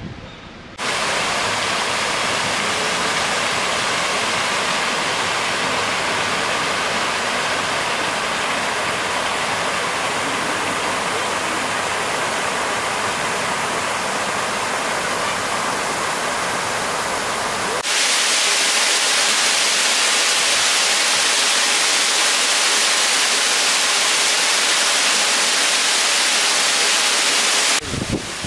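Steady rushing of falling water, like a waterfall, starting suddenly about a second in, stepping up louder and brighter a little past halfway, and dropping off just before the end.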